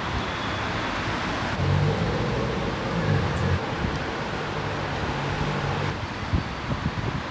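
Road traffic noise, with a low engine-like hum through the middle.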